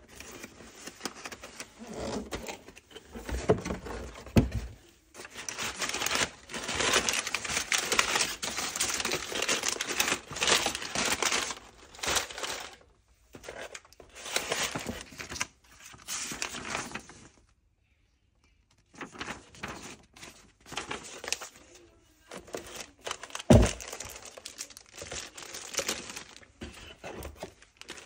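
Parcel packaging being handled and opened by hand: crinkling and tearing of wrapping in irregular bursts, with a short pause about two-thirds through and a single thump a few seconds before the end.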